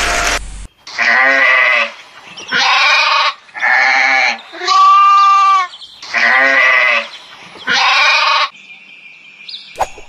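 Sheep bleating: six calls in a row, each under a second long, the middle one smoother and longer than the rest. A short click comes near the end.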